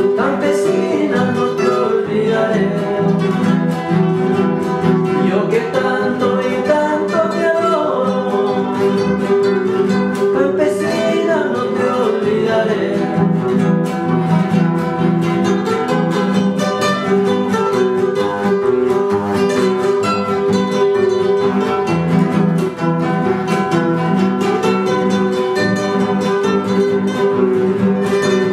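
Several acoustic guitars strummed and picked together in a folk song, with a man singing over them.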